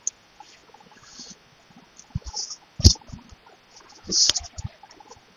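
Scattered small clicks and knocks with brief rustling hiss, the sharpest knock about three seconds in.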